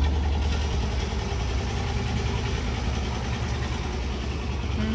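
Small homemade tractor's engine running steadily as it drives past, with a low rumble underneath.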